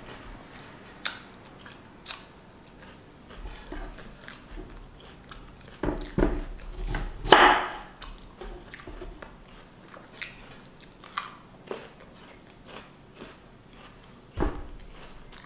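Crisp crunching of raw jicama: crunchy chewing of jicama pieces, and a knife cutting a slice from a large jicama on a wooden cutting board. The loudest crunches and knocks come from about six to seven and a half seconds in, with a sharp knock near the end.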